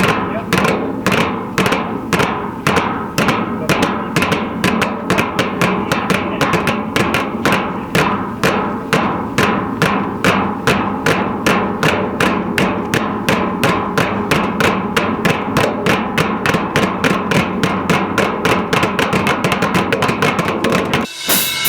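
Rapid, regular knocking strikes, about four a second and speeding up toward the end, beaten out by hand as film foley sound effects. They stop briefly just before the end.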